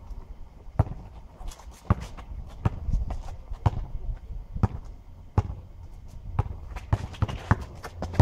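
Basketball dribbled on an asphalt court, bouncing about once a second and a little faster near the end as the player drives to the basket, with sneakers scuffing between bounces.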